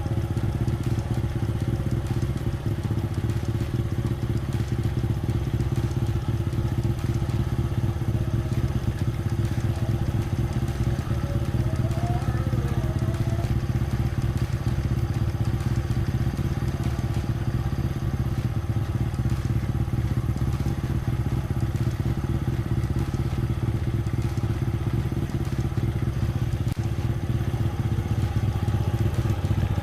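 Honda Supra X 100's small four-stroke single-cylinder engine idling steadily while being warmed up.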